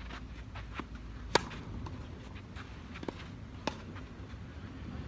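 Tennis ball struck back and forth by rackets in a doubles rally, with the sharpest hit about a second and a half in and two more about two seconds later, amid many lighter footfalls on the court.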